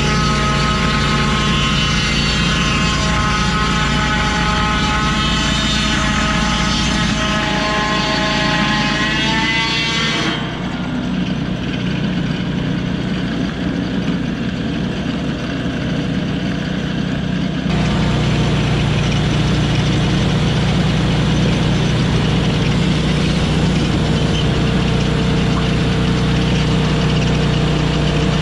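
Lucas portable swing-blade sawmill: its petrol engine drives the circular blade through a blackbutt hardwood log with a loud, steady whine. About ten seconds in the whine rises in pitch, then the sound drops away abruptly. From about eighteen seconds the engine runs steadily again.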